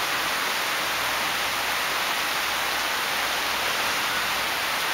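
Rain falling steadily, an even hiss with no single drops or splashes standing out.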